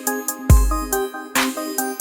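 Background electronic music with melodic synth notes and a deep bass hit about half a second in.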